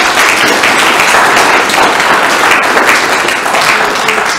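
An audience applauding, many people clapping together steadily.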